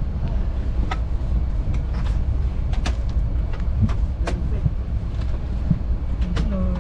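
Steady low rumble in an Airbus A321 cabin at the gate, with the air conditioning running. About half a dozen sharp clicks and knocks are scattered through it.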